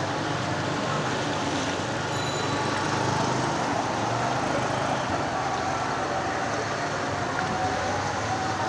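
Steady street noise with a CNG auto-rickshaw's engine running as it drives through knee-deep floodwater, its wheels pushing up a wake.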